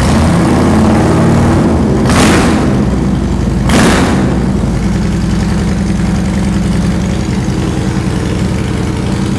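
Fuel-injected 1670 cc V-twin of a 2006 Yamaha Road Star Warrior running through an aftermarket Vance and Hines exhaust, just started and idling with a loud, lumpy note. There are two short throttle blips, about two and four seconds in.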